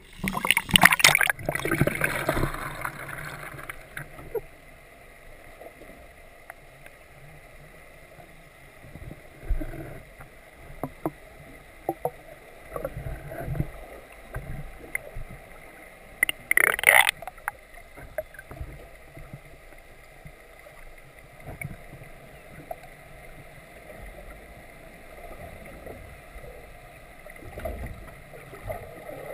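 Water sloshing and slapping against the hull of a drifting boat, with scattered small knocks. There are two louder splashes, one about a second in and one a little past halfway.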